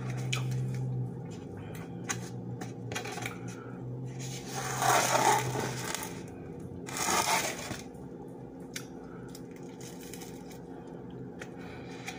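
Close-up eating sounds: a toasted breakfast sandwich being handled on a paper plate, bitten and chewed, with many small clicks and two louder noisy bursts about five and seven seconds in. A steady low hum runs under the first half.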